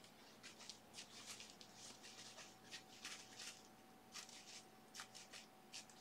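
Faint, quick, irregular scratchy strokes of a hog-bristle brush rubbing against a surface, over a faint steady electrical hum.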